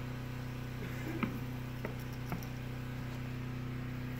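A goat nibbling and snapping twigs off evergreen branches: three short sharp snaps about a second, two seconds and two and a half seconds in, over a steady low hum.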